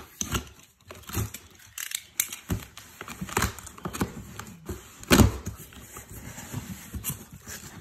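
A package being opened and its foam packing handled: irregular rustles, clicks and knocks, the loudest a sharp knock about five seconds in.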